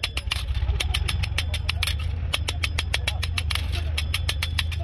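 A vehicle engine running with a steady low rumble that comes in at the start, over a stream of sharp clicks, several a second.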